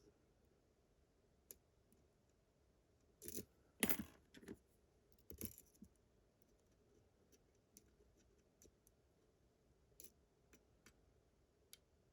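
Lock-picking tools working in an Abus GDS lock: faint scattered clicks, with a few louder metallic rattles and scrapes between about three and six seconds in.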